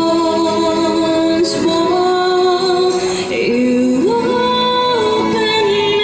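A woman singing into a handheld microphone, amplified, holding long sustained notes that step up and down in pitch.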